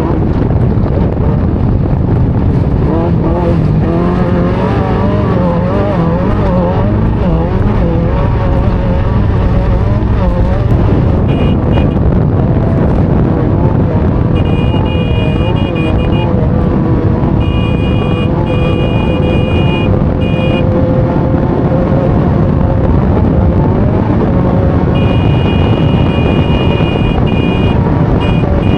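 Off-road race vehicle's engine running hard under load, heard onboard, its revs rising and falling quickly over rough ground. A high steady tone comes and goes several times in the second half.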